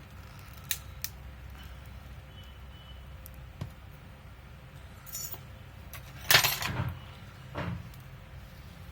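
Scattered light clicks and clinks of small metal tools and phone parts being handled and set down, with a louder jangling clatter about six seconds in.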